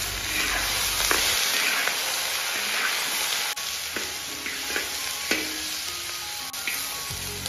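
Chunks of snapping turtle meat sizzling as they sear in hot oil in a wok. From about halfway through, a metal spatula scrapes and knocks against the wok a few times as the pieces are turned.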